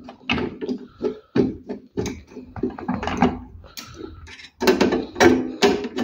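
Screwdriver turning screws into a desktop PC's steel drive cage to fix a hard drive in place: an irregular run of short metallic clicks, knocks and scrapes.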